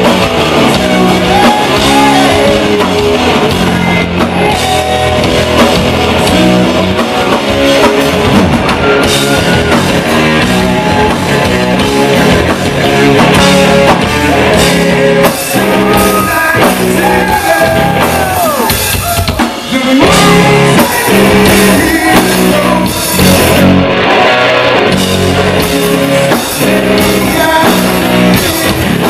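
Southern rock band playing live: distorted electric guitars, bass and a drum kit, with singing over them.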